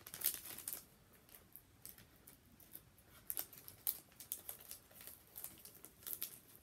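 Pokémon card booster pack's foil wrapper crinkling and trading cards being handled: irregular short crackles and flicks, with a cluster near the start and another about three to four seconds in.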